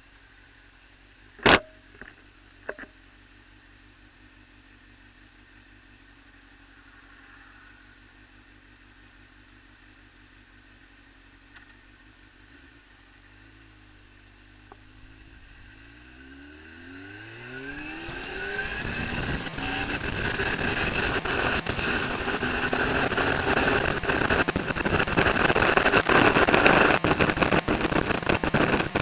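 Suzuki GSX-R sport motorcycle engine running quietly at idle, with a sharp click about a second and a half in. About halfway through it revs up and pulls away, rising in pitch, and a loud rush of wind on the microphone builds over the engine as speed rises.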